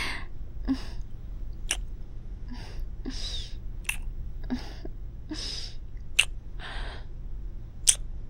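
A woman's close-miked mouth sounds: a string of soft kisses and breaths, each a short breathy puff, a few of them ending in a sharp lip smack, about one every second.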